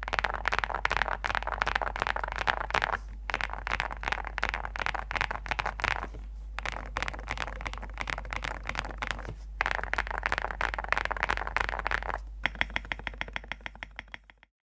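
Fast typing on a ZOOM65 mechanical keyboard with Graphite Gold switches on a PC plate with full foam: dense runs of key clicks broken by three short pauses. Near the end comes a quick, even run of key presses that fades out, over a steady low hum.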